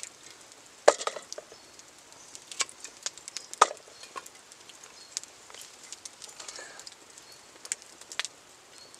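Knife cutting carrot on a wooden log chopping block: scattered sharp knocks and lighter clicks, the loudest about a second in and again a little past three and a half seconds.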